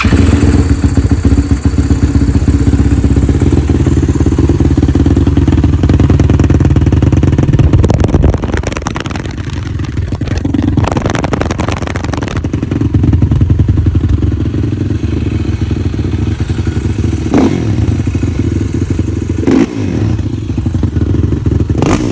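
Suzuki LT-R450 quad's 450 cc single-cylinder four-stroke engine running loud through its stock exhaust and being revved. It is hardest on the throttle for the first several seconds, eases off, then takes sharp blips near the end.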